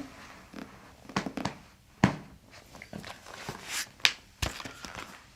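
A few separate soft knocks and clicks with faint rustling as a patient is moved and pressed on a chiropractic treatment table. The loudest knock comes about two seconds in, and another comes near four seconds.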